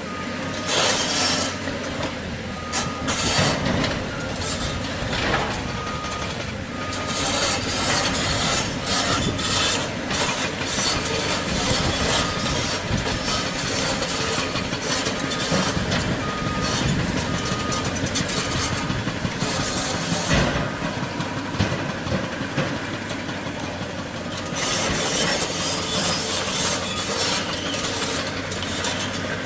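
Heavy diesel excavator working broken rock: the engine runs with a steady low hum under loud scraping, grinding and clattering of stone, with many sharp knocks. A faint beeping alarm repeats about once a second through the first half.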